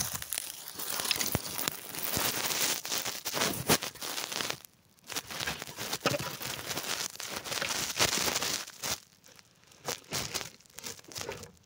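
Close crinkling and crackling handling noise right at the phone's microphone, full of small clicks, with two short breaks, about five seconds in and again near nine seconds.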